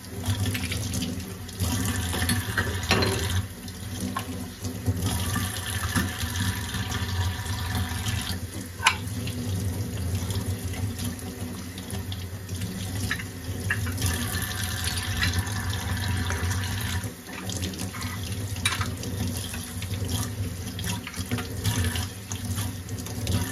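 Kitchen tap running into a stainless steel sink as gas-stove burner parts are rinsed under the stream, the water splashing off them steadily, with a few sharp knocks.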